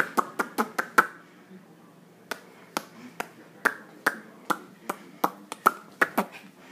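Sharp popping sounds, repeated: a quick flurry of about six in the first second, then after a short pause an even run of roughly two to three pops a second.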